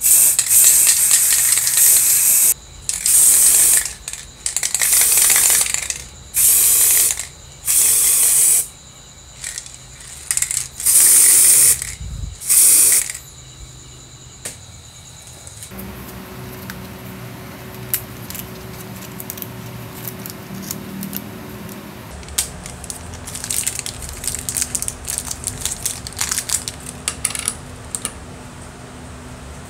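Spray paint hissing from the nozzle in repeated short bursts, about eight in the first thirteen seconds. Afterwards only quiet small clicks and handling of small metal parts.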